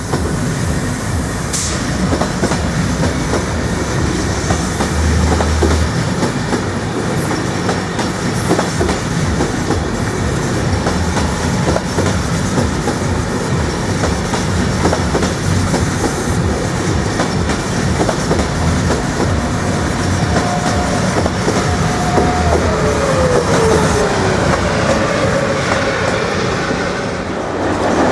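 A train rolling through a railway level crossing, its wheels clattering steadily over the rail joints and crossing. About 20 s in, a steady tone sounds and then slides down in pitch before the train sound eases off near the end.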